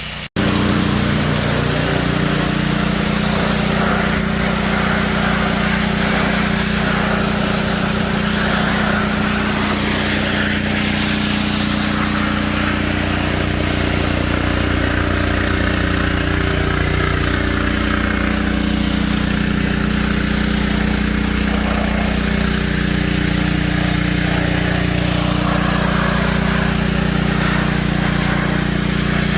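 Pressure washer running steadily under load, its engine's steady drone mixed with the hiss of the water spray.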